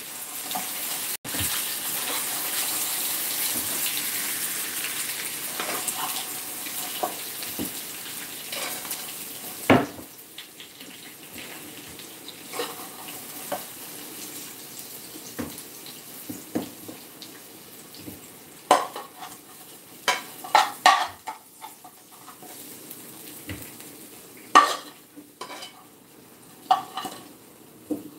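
Pork ribs sizzling in a frying pan, the sizzle fading over the first ten seconds or so. Then metal tongs and a spoon clink and scrape against the pan and plate as the ribs are served, in short sharp clacks.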